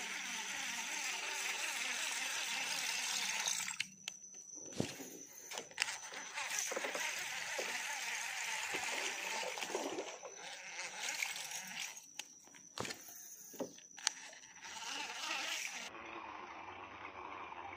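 Steady buzzing of insects with a thin high whine running through it, broken by a few short clicks and knocks, typical of handling a baitcasting reel.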